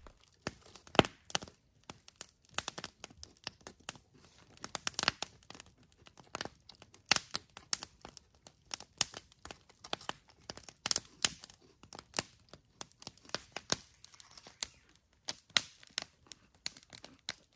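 Log campfire crackling, with irregular sharp pops and snaps from the burning wood.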